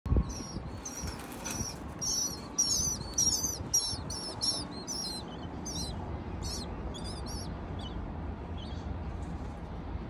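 Nestlings begging in their nest: a run of short, high, thin chirps, about two a second, that grow fainter and die away near the end.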